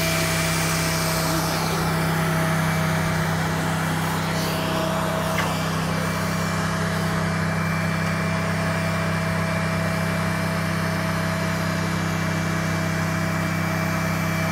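Truck-mounted furniture lift running: a steady engine drone with a constant thin whine over it, unchanged throughout.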